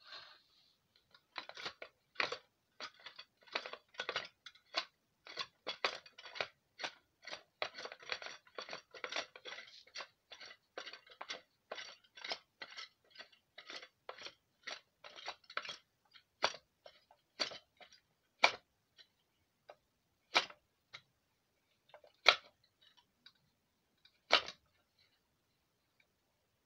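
Homemade pipe-fitting mini lathe's spindle and pulley turning with a rhythmic clicking, about three clicks a second. About two-thirds of the way in the clicks slow to single sharp clicks one or two seconds apart.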